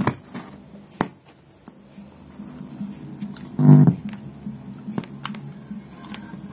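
Small clicks of RCA plugs being handled at a surround decoder's output jacks, with a short buzz through the speaker about three and a half seconds in as a plug meets a jack.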